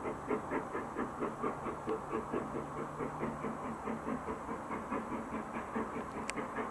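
BR Standard Class 9F 2-10-0 steam locomotive working hard up the climb towards the tunnel. Its exhaust beats come in an even rhythm of about four to five a second.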